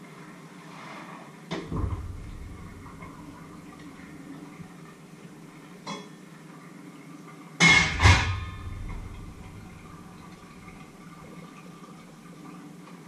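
Metal pots and kitchenware clanking: a knock, a smaller knock, then a louder double clank with ringing about eight seconds in, like a stainless steel stockpot being set down on a steel sink drainer.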